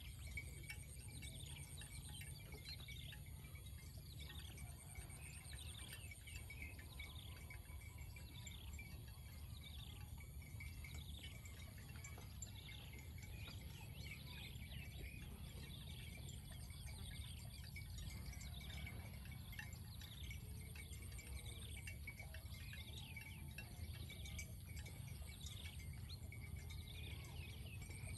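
Birds calling over and over in short falling notes, over a steady high-pitched insect trill that pulses now and then, with a low steady rumble underneath.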